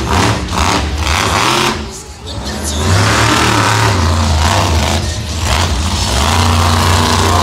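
Monster truck engine revving hard. The sound falls away briefly about two seconds in, then the engine revs up again and stays loud.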